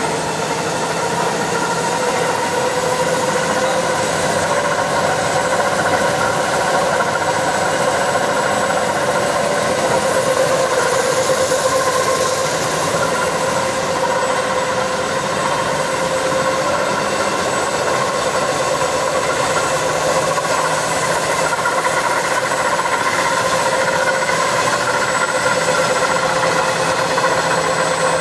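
Titan automatic slitter rewinder running, winding printed plastic film onto a roll: a steady mechanical hum with a thin high whine, even in level throughout.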